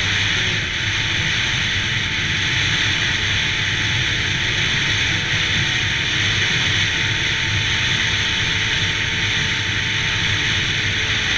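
2002 Yamaha SX Viper snowmobile's 700cc three-cylinder two-stroke engine running at a steady speed under a steady hiss of wind.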